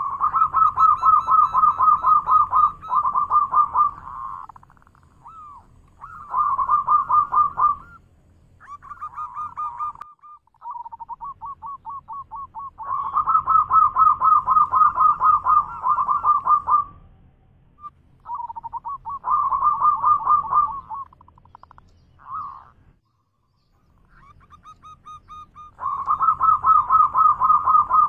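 Zebra dove singing its loud cooing 'manggung' song: repeated phrases of rapid pulsed coos, each lasting up to about four seconds, with short pauses between them.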